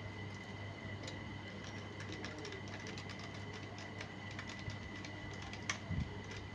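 Faint light clicks and ticks from small laptop parts and screws being handled, over a steady low electrical hum, with one sharper click near the end.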